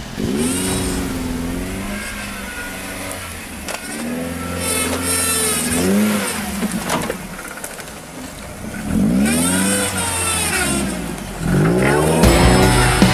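A 4x4's engine revving hard in three surges, its pitch climbing with each one and falling back between them, with a hiss over the loudest revs. Music cuts in near the end.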